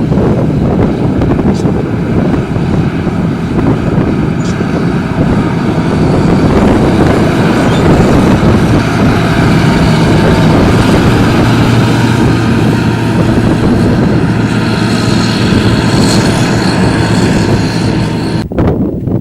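Harvest machinery engine running steadily, with wind blowing on the microphone; the high part of the sound drops away abruptly near the end.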